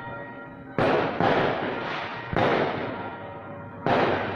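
Aerial fireworks bursting overhead: three loud bangs about a second and a half apart, each trailing off over about a second, with faint music underneath.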